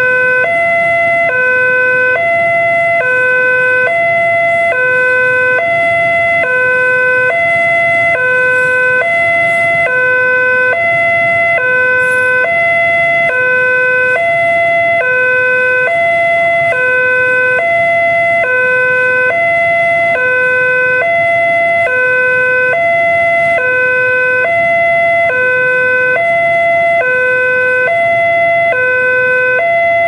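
Railway level-crossing warning siren sounding a two-tone alarm that alternates between a low and a higher tone about once a cycle per second, steady and loud. It signals that the crossing is closed while a train passes.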